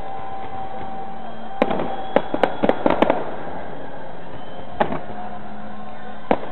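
Aerial fireworks bursting: a quick run of sharp bangs and pops about one and a half seconds in, a single bang near the five-second mark, and another run starting near the end.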